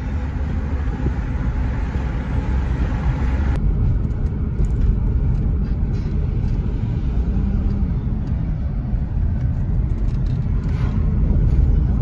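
Car cabin noise while driving: a steady low road and engine rumble. A hiss over it cuts off abruptly about three and a half seconds in.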